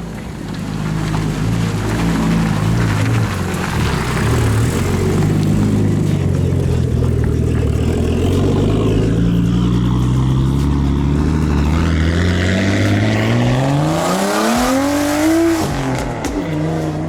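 Nissan Laurel drift car's engine running at low revs that rise and fall a little, then revving up in a long rising climb and dropping suddenly near the end, as the car is driven off on a test run.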